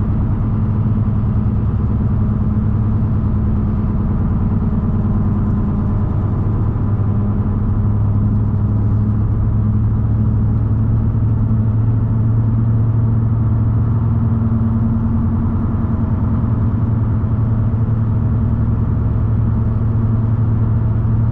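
The 6.0L Vortec V8 of a 2016 Chevrolet Silverado 2500HD with an aftermarket exhaust that dumps ahead of the rear wheels, heard from inside the cab at a steady cruise. It makes a steady low drone, with road and tyre noise from badly chopped tyres underneath.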